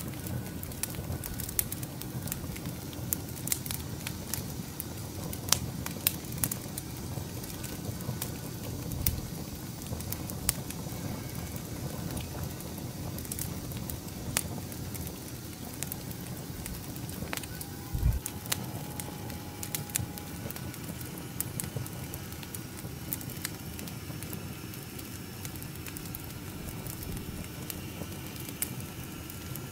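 Wood fire burning in a small fire pit, with a steady low rush and sharp crackles and pops scattered throughout. A single dull low thump comes a little past halfway.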